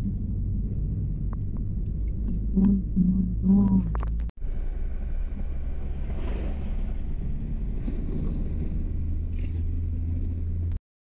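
Steady low rumble of a car's engine and tyres on the road, heard from inside the cabin while driving. The sound drops out for an instant about four seconds in and stops abruptly near the end.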